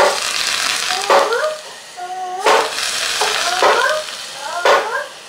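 Hot sunflower oil sizzling and boiling up in glass jars of fried zucchini as it is poured in. The hissing comes in surges about once a second, with short rising squeals within each surge.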